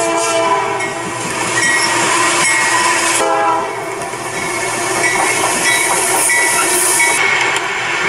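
Diesel freight locomotive horns sounding a chord of several steady notes over the noise of passing freight cars. The sound changes abruptly about three seconds in and again near the end, as one train recording gives way to the next.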